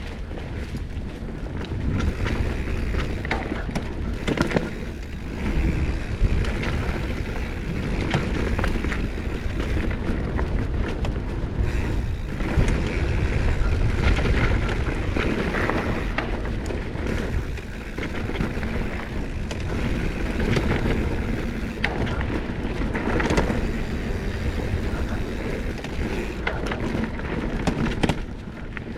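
Mountain bike running down a dirt trail: a continuous rumble of tyres over the ground, with the bike clattering over bumps.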